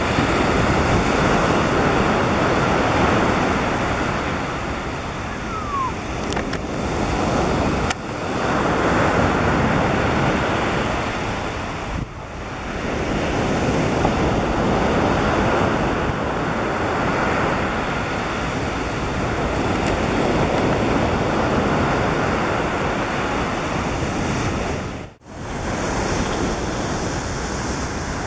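Steady rushing noise of surf breaking on the beach, mixed with wind buffeting the microphone. The sound drops out sharply for a moment near the end.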